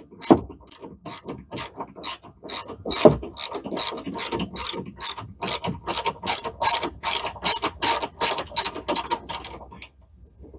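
Hand ratchet wrench clicking in a fast, even run of about three or four clicks a second as it is swung back and forth to back out a bolt on the roll cage. There are two duller knocks, one at the start and one about three seconds in, and the clicking stops near the end.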